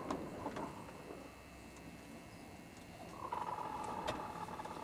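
Roosting chickens' sleepy night sounds, called snoring: a soft rustling with a few clicks, then about three seconds in one hen gives a drawn-out, steady call that holds one pitch to the end.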